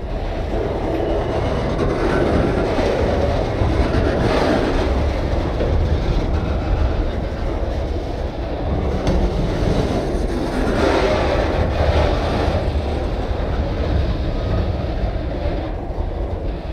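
Freight train of loaded lumber cars rolling past: a steady rumble of wheels on the rails, swelling twice.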